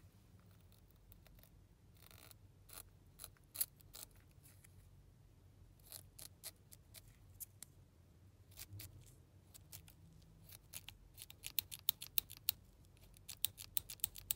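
Scissors snipping through the stretchy shell of a toy banana squishy: a run of short, sharp blade clicks, coming faster and louder over the last few seconds.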